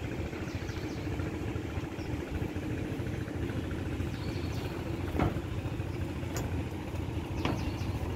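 Outdoor wind buffeting the microphone, making a steady, fluttering low rumble. A few sharp clicks come through, the clearest about five seconds in.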